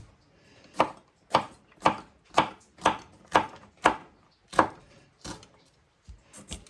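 Kitchen knife slicing mini sweet bell peppers into rounds on a cutting board: a steady run of sharp knocks, about two a second, then a few softer cuts near the end.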